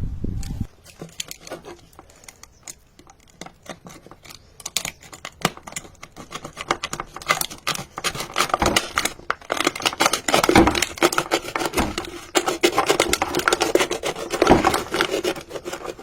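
An empty plastic bottle being handled and worked by hand, giving a dense run of crinkling and scraping clicks that grows busier and louder about halfway through.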